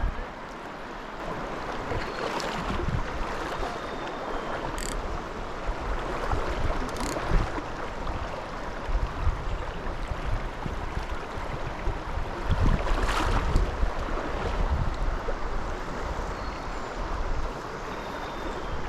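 Stream water running steadily, with wind buffeting the microphone in low rumbling gusts.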